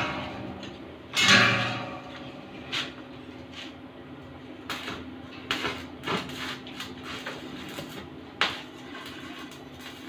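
Metal parts being handled: scattered knocks and clanks, with a longer scrape about a second in and a sharp knock near the end, over a steady low hum.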